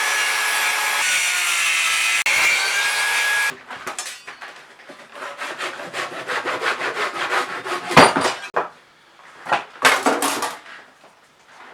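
A saw cutting through an old wooden railway tie: a steady cut with a whine that dips and recovers under load, stopping abruptly about three and a half seconds in. Uneven rasping strokes on the wood follow, with a sharp knock about eight seconds in.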